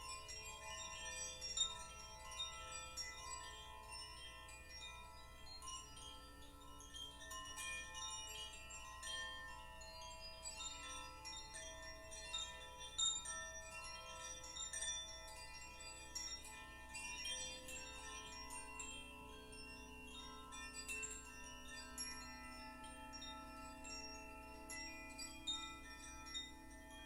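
Wind chimes ringing with a steady, irregular tinkling of overlapping bell-like tones that linger and blend. A low steady tone joins in about two-thirds of the way through.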